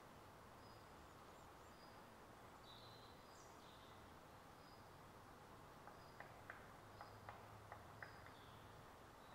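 Faint woodland ambience: small birds call in the canopy, one repeating a short high note about once a second. A run of six or so sharp clicks comes about six to eight seconds in.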